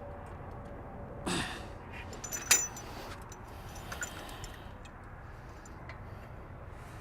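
Small metal parts clinking as a tractor's sway link pin and lynch pin are handled and fitted: a short swish about a second in, then a sharp metallic clink with a brief ring, the loudest sound, followed by a few lighter ticks.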